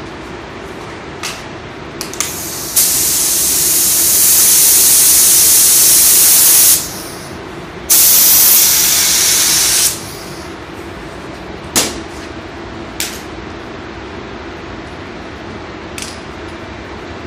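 A compressed-air paint spray gun spraying in two bursts, one of about four seconds and then, after a short pause, one of about two seconds. Each starts and stops sharply as the trigger is pulled and released. A few short clicks and a steady low hum run underneath.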